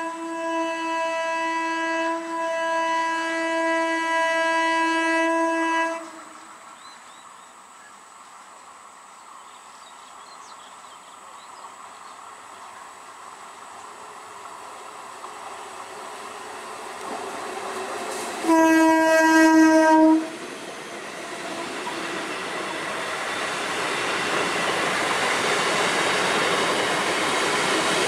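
Eastern Railway EMU electric local train sounding its horn: a long steady blast that stops about six seconds in, then a second blast of about two seconds later on. After the second blast the noise of the train running on the rails rises steadily as it rolls past.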